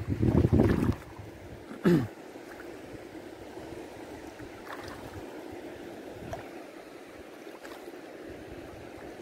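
Shallow seawater sloshing as someone wades through it, with wind buffeting the microphone in the first second and a short falling-pitched sound about two seconds in. After that comes a steady wash of water noise.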